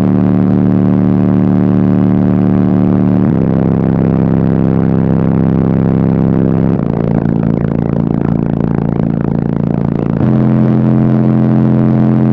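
Very loud bass-heavy music through a car audio system of four Bassface 15-inch subwoofers on two Bassface amplifiers, heard from inside the car. Long held bass notes change pitch about every three and a half seconds.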